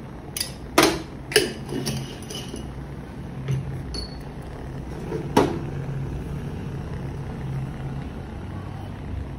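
Metal kitchen utensils clinking and knocking against a cooking pot, about seven separate strikes in the first five and a half seconds, over a steady low hum.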